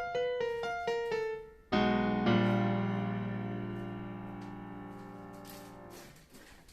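Background piano music: a quick run of single notes, then a low closing chord about two seconds in that rings out and slowly fades away near the end.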